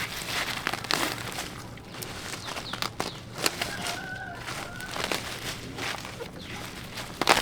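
Leaves and stems rustling and crackling as garden plants are handled, with a louder snap near the end. A short, faint bird call sounds about four seconds in.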